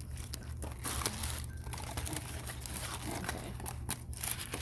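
Packaging crinkling and rustling in irregular crackles as a wig is pulled out of its wrapping, with a short tearing sound.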